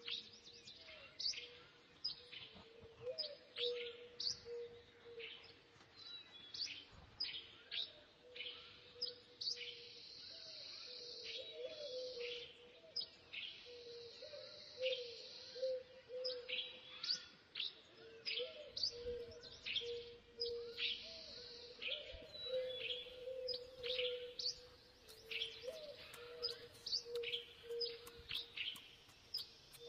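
Forest birds chirping: many quick downward-swept chirps repeating throughout, over a steady low wavering note, with a few stretches of high hiss.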